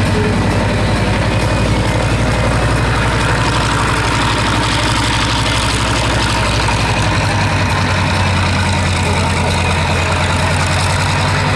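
Grumman Avenger's 14-cylinder Wright R-2600 radial engine running steadily at idle on the ground, a low, even drone.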